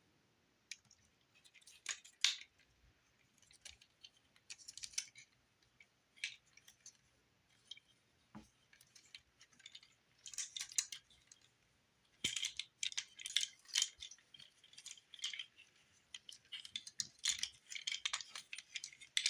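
Plastic parts of a Transformers Studio Series Deluxe Ratchet figure clicking, scraping and rattling in the hands as it is twisted and folded through its transformation. The sounds come in scattered bursts with short pauses between.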